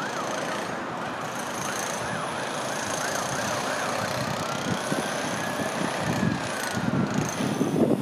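Emergency vehicle siren: a quick up-and-down yelp for the first few seconds that switches to one slow rise and fall, over a steady background hum of traffic. Gusts of wind hit the microphone near the end.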